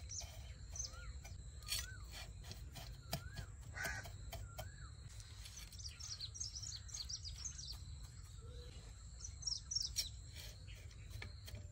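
Birds chirping faintly in the background: scattered short high chirps and a few rising-and-falling whistled notes, with a few light clicks.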